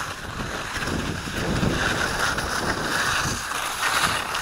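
Wind buffeting the microphone in uneven gusts: a rough rushing noise with low rumbling.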